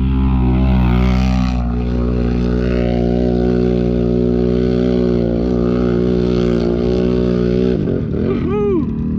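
ATV engine held at steady high revs, then easing off about eight seconds in with one quick rev up and back down near the end.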